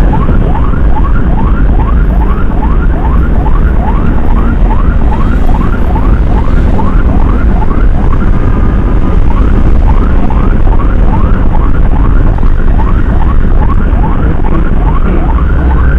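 Electronic siren in a fast yelp, each tone sweeping upward and repeating about three times a second, over a heavy low rumble of wind from riding at speed.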